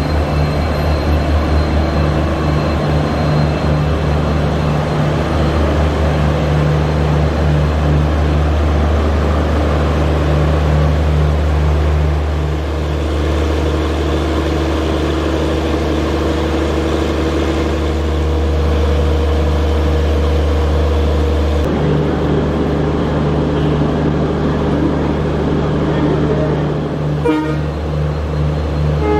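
EMD GT46PAC (WDP4D) diesel-electric locomotive's two-stroke diesel engine running at the platform with a loud, deep, steady throb.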